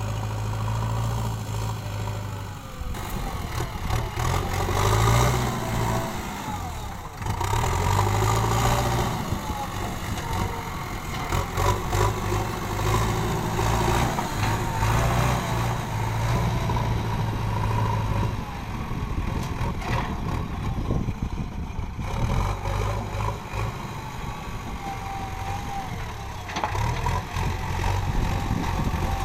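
JCB 3DX backhoe loader's diesel engine running under varying load, its pitch rising and falling every few seconds, with a few sharp knocks along the way.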